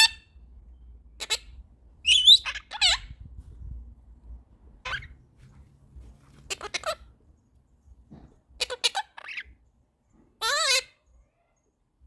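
Quaker parrot (monk parakeet) giving short, separate squawks and chirps, about seven or eight of them, with a busy cluster about two seconds in and a longer, falling call near the end.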